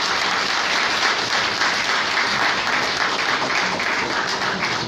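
A roomful of people applauding, steady, dense clapping.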